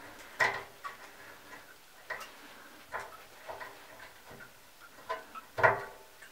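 Irregular clicks and taps of a plastic seal-removal tool being worked onto a Drayton TRV4 thermostatic radiator valve, fitting into the slots of the old spindle seal, which are clogged with verdigris. The loudest clicks come about half a second in and near the end.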